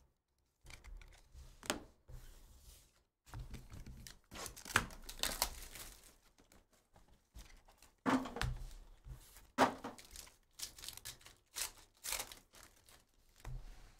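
Clear plastic shrink-wrap being torn and crinkled off a trading-card hobby box, then a foil card pack ripped open, with a few sharp knocks of the box being handled.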